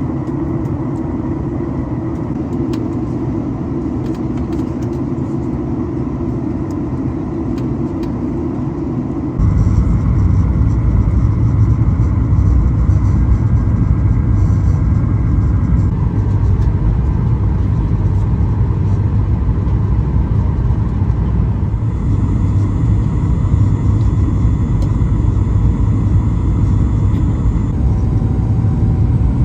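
Steady in-flight cabin noise of a Boeing 737-9 MAX, the roar of airflow and engines heard from a seat. About nine seconds in it steps abruptly to a louder, deeper rumble.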